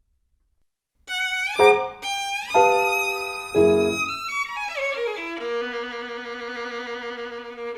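Violin music starting after about a second of silence: quick upward slides into bright held notes, then a falling run that settles into long sustained notes.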